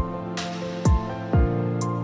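Background music: sustained mellow chords over an electronic drum beat with deep kick drums and light cymbal hits.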